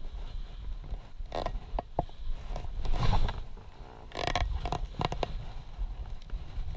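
Boots plunging and crunching through deep, soft snow on a steep descent, in irregular steps. A steady low rumble runs underneath.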